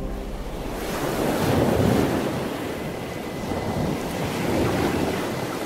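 Sea water rushing and washing like surf, with no tones, swelling and easing a couple of times.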